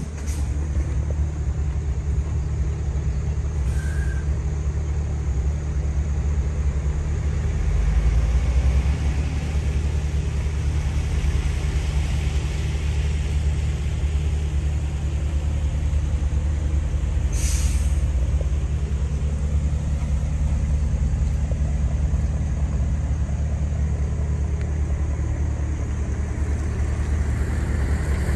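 Heavy truck's diesel engine idling steadily, with a brief hiss of released air about two-thirds of the way in.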